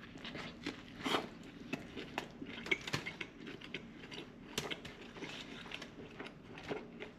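Close-miked chewing of a chicken and lamb gyro wrap: irregular wet mouth clicks and soft crunches, with a few louder smacks about a second in, near three seconds and past four and a half seconds.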